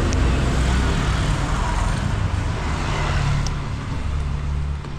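Road traffic: a passing motor vehicle's low engine rumble and road noise, steady and fairly loud, easing slightly near the end.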